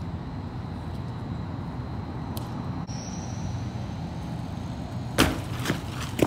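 Steady low rumble, then about five seconds in a loud clattering impact followed by two more sharp knocks near the end: a BMX bike landing a drop, its tyres and frame hitting the ground.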